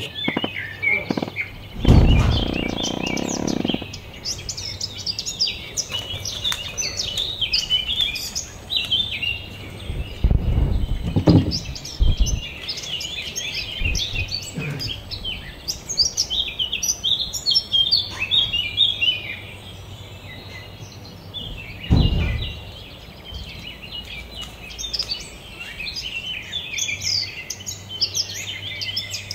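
Many small birds chirping and singing in a busy, overlapping chorus. A few dull low rumbles or thuds come through: one a couple of seconds in, a cluster around the middle, and one about three quarters through.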